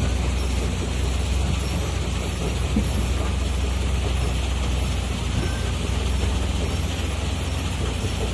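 Large diesel engine of heavy mining machinery running steadily, a continuous deep engine note.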